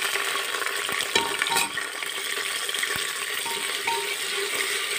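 Sliced onions sizzling in hot oil in a pressure cooker as they are stirred with a steel spoon, a steady frying hiss. A couple of short clicks about a second in.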